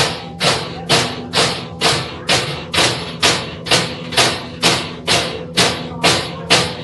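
A group of large Bavarian Forest wolf bells (Wolfsglocken), worn in front and swung by the ringers in unison, clanging in a steady beat of about two strokes a second, each stroke ringing on into the next.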